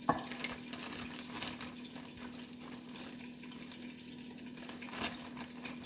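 Chicken pieces sizzling as they fry in a pot with onions and garlic: a steady hiss, with a low hum underneath. A sharp knock comes right at the start and another about five seconds in.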